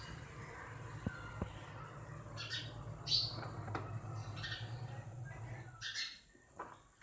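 House sparrows chirping: a handful of short, irregularly spaced chirps over a low steady hum that stops about six seconds in.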